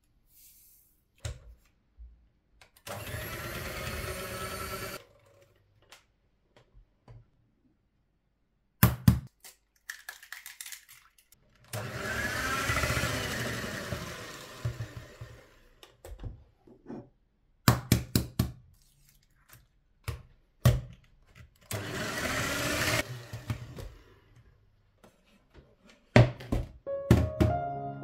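WMF electric hand mixer beating a soft butter-and-egg dough in a wooden bowl, run in three bursts of a few seconds each, its motor pitch drifting up and down. Sharp knocks come between the runs.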